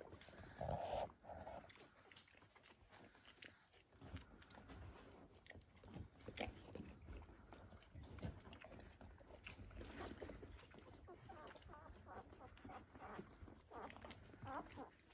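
Very young Dalmatian puppies faintly squeaking and grunting, with a short louder squeal about a second in, among soft rustles and clicks.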